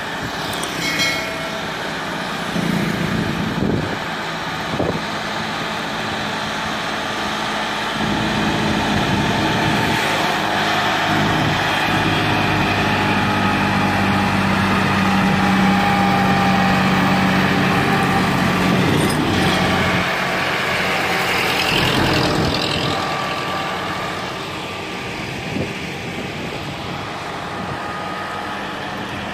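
Diesel tractor engine running under load while hauling two fully loaded sugarcane trailers past. It grows louder, is loudest about halfway through, then fades as the rig moves away.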